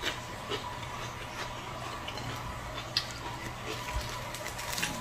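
Close-up eating sounds: chewing with scattered sharp mouth clicks, the loudest about three seconds in, and a soft low thump about a second later as a bread roll is handled. A faint steady hum runs underneath.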